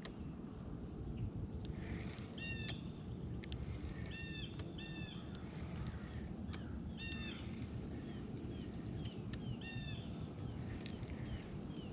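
A bird calling repeatedly outdoors: short, clear calls every second or two, with some smaller chirps between them, over a low steady background noise.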